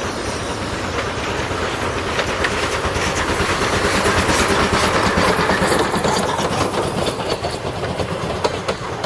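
Train running past close by, its wheels clacking over the rail joints, growing louder toward the middle and then easing off.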